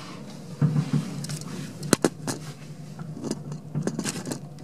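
Fireworks going off over the bay: a few dull booms and several sharp cracks at uneven intervals.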